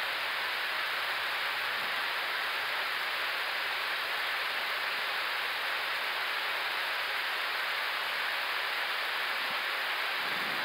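Steady, even hiss of air rushing past the Airbus A350-1000 flight deck and of its air conditioning, heard inside the cockpit during the climb.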